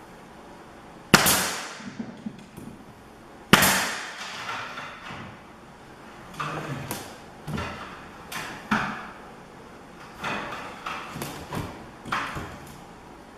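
Nail gun firing two sharp shots about two and a half seconds apart, followed by a series of lighter knocks as the board is handled and pressed against the ceiling.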